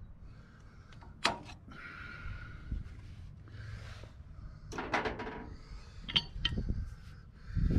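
Scattered metallic clinks and knocks of hand tools being handled, with a heavy pipe wrench brought to the loader's hydraulic lift cylinder. A brief scrape comes about two seconds in.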